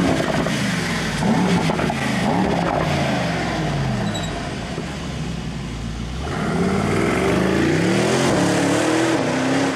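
Mercedes-AMG E63 S's 4.0-litre twin-turbo V8 accelerating hard past and away. The engine note climbs and drops back several times as it shifts up through the gears, falls away about six seconds in, then climbs again.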